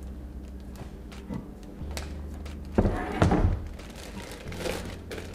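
A glass measuring cup knocks down onto a stone countertop about three seconds in, with a plastic zip-top bag crinkling as it is stretched over the cup's rim.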